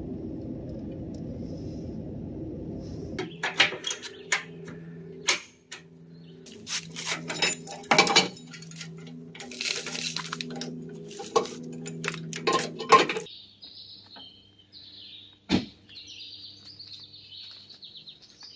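A vehicle engine idling, cut off about three seconds in. Metal clips and hooks then clink and rattle as straps are handled, and birds chirp near the end.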